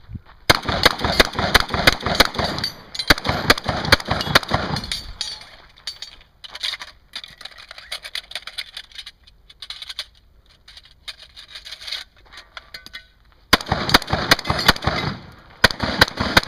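Shotgun fired in a fast string of shots at steel targets, starting about half a second in. A quieter stretch in the middle holds scattered clicks of shells being loaded, then a second fast string of shots begins near the end.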